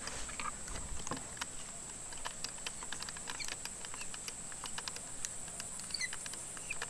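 A steady high-pitched insect drone, with scattered light clicks and rustles as the crossbow is moved through grass and twigs.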